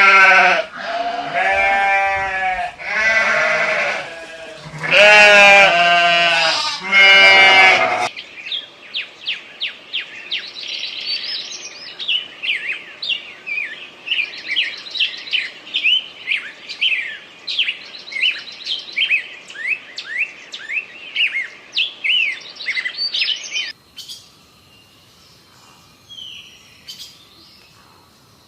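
Sheep bleating: about five long, wavering calls over the first eight seconds. Then a bird chirps rapidly in quick, high, falling notes for about fifteen seconds and stops abruptly, after which only faint scattered sounds remain.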